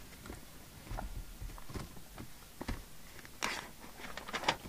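Paper pages of a spiral-bound printed service manual rustling as they are handled and turned, with scattered soft clicks, a louder rustle about three and a half seconds in, and a few sharp paper crackles near the end.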